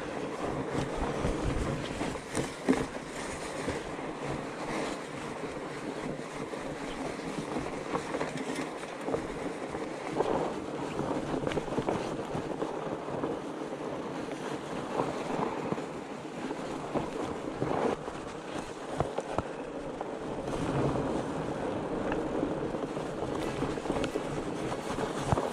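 Fat bike riding along a trail: continuous rolling and rattling noise with wind on the microphone, broken by frequent short knocks and clatters.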